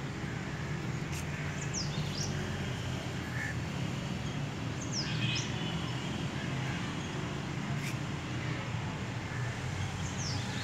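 Steady low outdoor rumble with a few short, high bird chirps over it, in quick pairs about a second in, around five seconds and again near the end.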